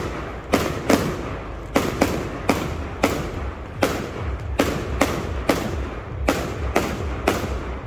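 A fireworks barrage firing aerial shells that burst overhead in quick succession. About a dozen sharp bangs come at a fairly even pace, a little under two a second.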